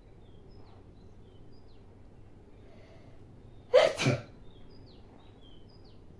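A woman sneezes once, loud and sudden, about four seconds in, the sneeze coming in two quick parts.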